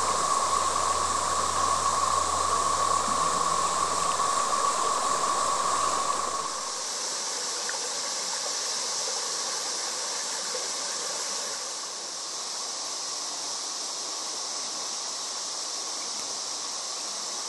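Shallow rocky river rippling and rushing over stones in a steady wash of water noise. About six seconds in, the sound changes suddenly: the low rumble drops away and a lighter, hissier rush goes on.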